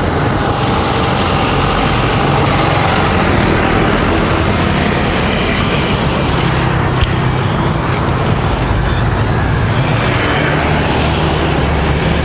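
Steady road traffic noise with a strong low rumble, heard from a bicycle riding along a busy street.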